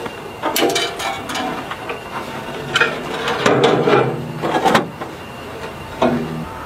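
Irregular metal clicks and knocks of gear being handled in an open fighter-jet cockpit, with a denser clatter about three and a half to five seconds in and another knock near the end.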